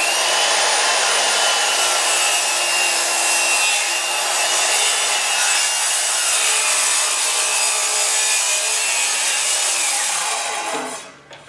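Metabo KGS18 LTX 216 18V cordless brushless sliding miter saw, fitted with its stock 40-tooth blade, running at a steady high whine while cross-cutting a 1x12 board. Near the end the blade winds down with a falling whine and stops.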